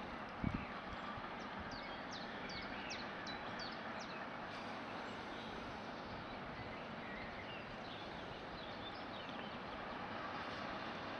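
Birds chirping in short, quick high calls over a steady outdoor background hiss, with a brief low thump about half a second in.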